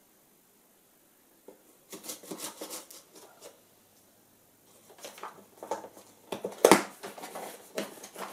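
A cardboard parcel being opened by hand: a knife scraping and slitting packing tape in short strokes, then cardboard flaps pulled open with rustling and a single sharp knock.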